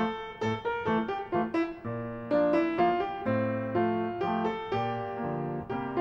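Background instrumental music of struck, decaying keyboard notes: single notes in quick succession, filling out with lower notes from about two seconds in.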